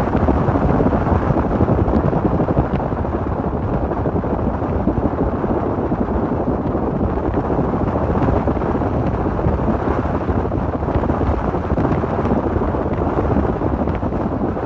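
Wind rushing hard across the microphone of a camera held up above the roof of a moving car, with the car's running noise underneath; a steady, loud rush.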